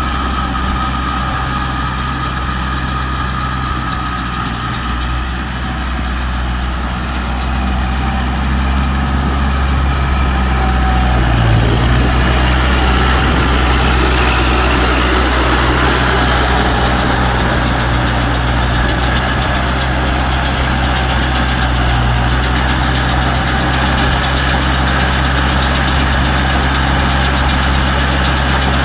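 Tractor engine running steadily, with the sound growing louder and fuller about ten seconds in.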